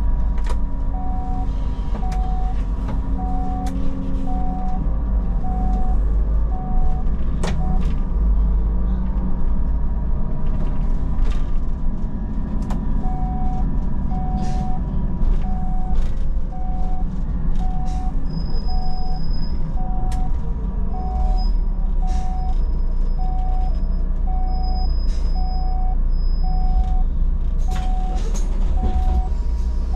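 Solaris Urbino 12 city bus under way: a steady engine and road drone. Over it, a short electronic beep repeats about one and a half times a second; it stops about seven seconds in and starts again a few seconds later.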